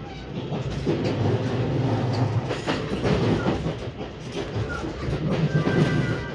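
JR West 223 series 2500 electric train heard from inside the carriage, running on the rails with a steady rumble and the wheels clattering over rail joints. It gets louder about a second in.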